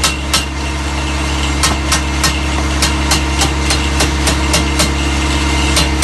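Hammer tapping on a steel drill core tube to knock the rock core out into the core box: one sharp metallic strike near the start, a quick run of three about a second and a half in, then lighter scattered taps. Under it runs a steady engine hum.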